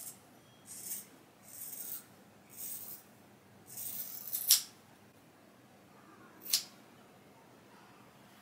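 Scissors cutting through wig hair: a run of short snipping strokes about once a second, the longest ending in a sharp snap about four and a half seconds in, then one more quick snip about two seconds later.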